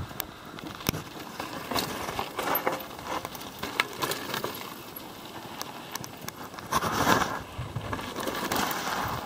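Mountain bike riding over a loose, rocky dirt trail: tyres crunching on gravel and the bike rattling, with many irregular clicks and knocks. A louder scuffing noise comes about seven seconds in as the rider slows.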